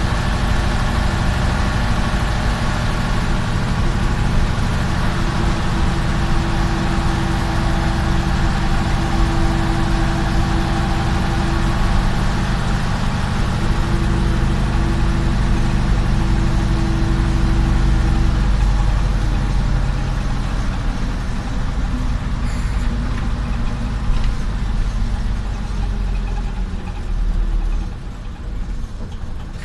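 Jelcz 043 bus's diesel engine running under way, heard inside the cabin, with a steady hum and a held mid tone through most of the run. About two-thirds of the way through, the engine note drops off as the bus eases off and slows.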